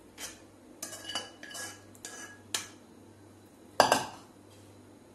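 A metal spoon scraping and clinking against a pan and glass bowl as custard is spooned out: a run of short ringing clinks, then a louder clatter about four seconds in.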